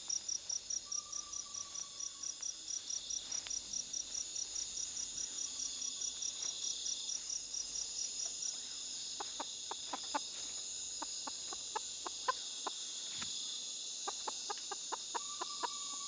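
Night insect chorus: a cricket chirping in an even pulse, about four chirps a second, over a steady high insect drone. The chirping stops about halfway through, and a scatter of short soft clicks follows.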